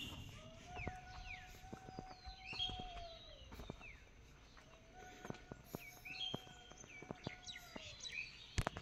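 Small birds chirping. Twice, a long steady whistle-like tone holds for about three seconds, rising at its start and sagging at its end, with scattered sharp clicks throughout.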